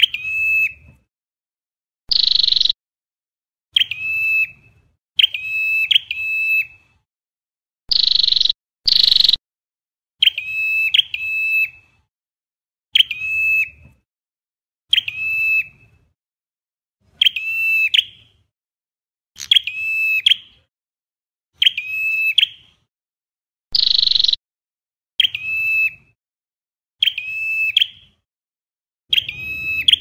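Ashy tailorbird (Orthotomus ruficeps) singing: loud, sharp, clear notes repeated every one to two seconds, some single and some in quick pairs. A few harsher buzzy notes come in between, twice in the first ten seconds and once near the end.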